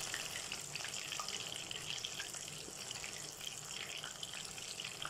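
Breaded chicken sticks on bamboo skewers deep-frying in hot oil in a wok: a steady sizzle with fine crackling.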